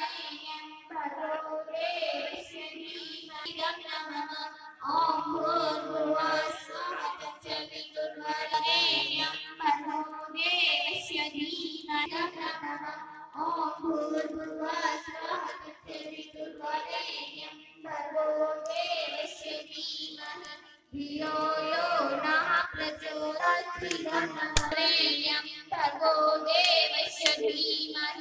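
A song: a high female or child voice sings phrases with vibrato over a steady accompaniment.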